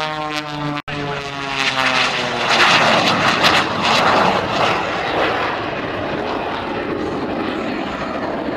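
Aerobatic biplane's propeller engine passing overhead, its drone falling in pitch as it goes by. A split-second break about a second in, then a loud rough rush of engine noise that eases into a steady drone.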